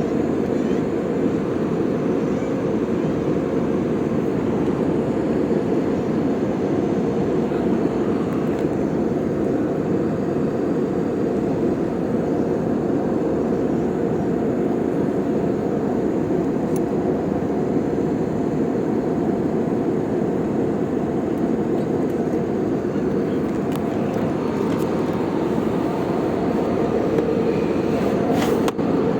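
Steady roar of engine and air noise inside the cabin of an Airbus A320-200 airliner, with a few faint clicks near the end.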